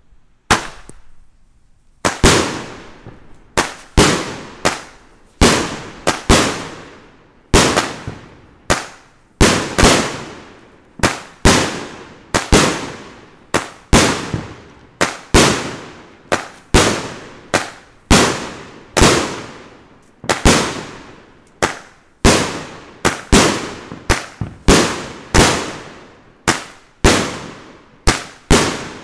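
A 25-shot, 200 g consumer firework cake firing its shots in steady succession, about two sharp bangs a second, each dying away over about half a second. A small pop comes first, and the shooting starts about two seconds in.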